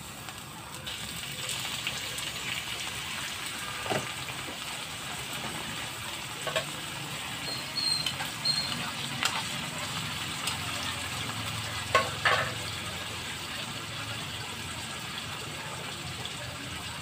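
Chicken livers sizzling in hot oil with onions in a frying pan, the sizzle starting about a second in as they are tipped in and running steadily. A few sharp clinks and knocks of a utensil against the pan come through it.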